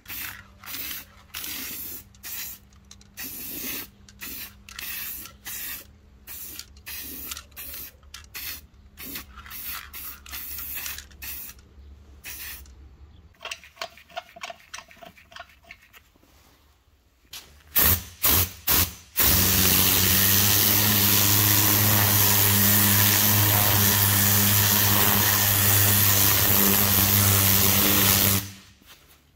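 Aerosol spray paint can spraying a steel wheel in a rapid run of short hisses for the first dozen seconds. From about 19 s, an upholstery cleaning machine's motor runs steadily with a low hum and a loud hiss while its wand is worked over a cloth car seat; it stops just before the end.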